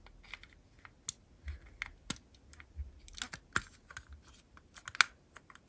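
Hard plastic parts of a Bandai Buzz Lightyear model kit clicking and tapping as the clear dome helmet pieces are handled and pressed into place on the figure. The clicks are light and irregular, the sharpest about five seconds in.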